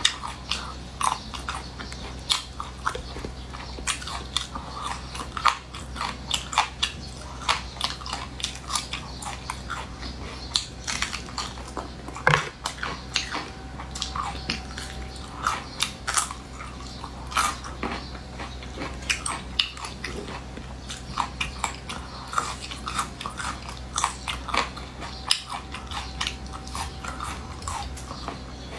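Close-miked eating: wet chewing and mouth smacking with occasional crunches, irregular sharp clicks several times a second, over a steady low hum.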